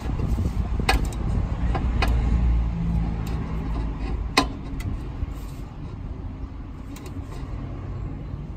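Hand tool tightening the filler plug on a TGB Blade 550 ATV's front differential: a few sharp metallic clicks, the loudest about four and a half seconds in, over a low steady noise that fades about halfway through.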